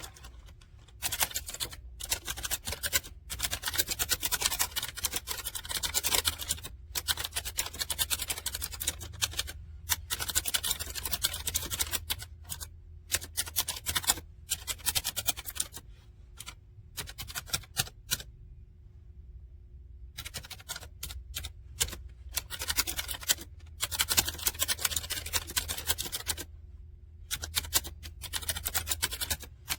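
Typing on a typewriter-style mechanical keyboard: fast runs of clicky keystrokes broken by short pauses, over a low steady hum.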